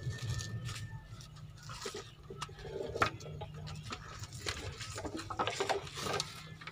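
Weathered wooden boards knocking and scraping as they are handled and shifted, a run of light irregular knocks with one sharper knock about three seconds in, over a faint steady low hum.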